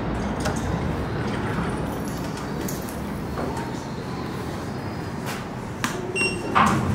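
Key-fob card reader at a building entrance giving a short, high electronic beep as a fob is tapped on it, about six seconds in, over a steady background rush. A clunk follows right after it near the end.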